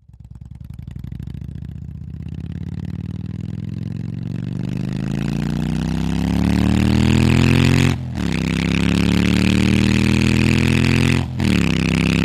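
Motorcycle engine revving up and pulling away, its pitch climbing steadily for several seconds. It dips briefly twice, about eight and eleven seconds in, before running on.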